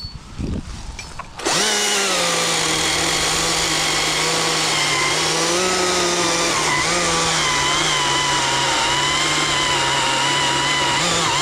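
Two-stroke chainsaw opened up to full throttle about a second and a half in, then held wide open with its pitch pulled down a little under load as it cuts through wood. It rises back up to free-revving pitch near the end as the cut finishes.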